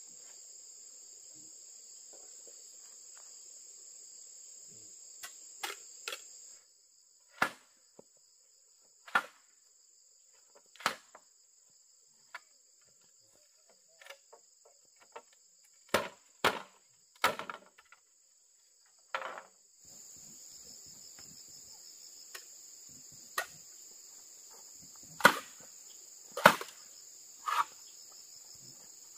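Irregular sharp knocks of a tool striking wood, about fifteen blows a second or a few seconds apart, over a steady high-pitched insect chorus. The insect chorus drops out for about thirteen seconds in the middle, then returns.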